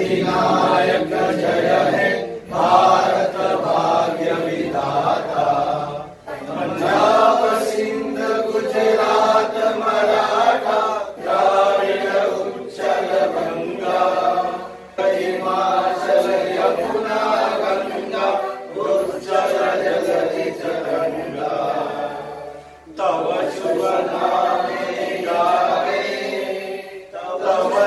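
A group of men singing together in unison, in long phrases broken by short pauses every several seconds.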